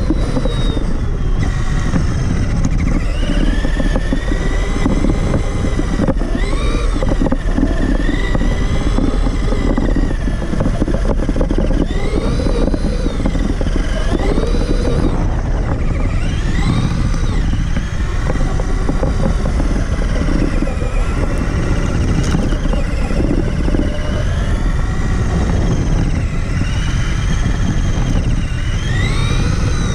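Traxxas Summit RC truck's electric motor and geared drivetrain whining, rising and falling in pitch again and again with the throttle, over a steady rumble of tyres and chassis close to the onboard camera.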